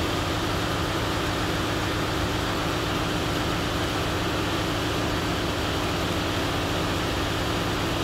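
Steady drone of a ship's engine-room machinery: an even rushing noise over a constant low hum that does not change.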